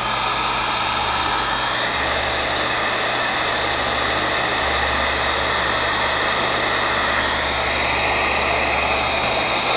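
Electric heat gun running steadily, its fan blowing hot air onto heat-shrink tubing to shrink it over soldered wire joints.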